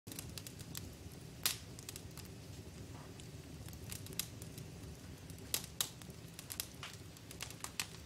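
Wood fire in a brick fireplace crackling, with irregular sharp pops over a low steady rumble; the loudest pop comes about one and a half seconds in.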